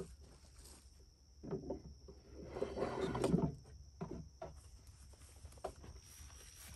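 A wooden tool box set down on a metal hitch-mounted carrier and slid into place: wood scraping and rubbing on metal, loudest around the middle, followed by a few light knocks as it is settled.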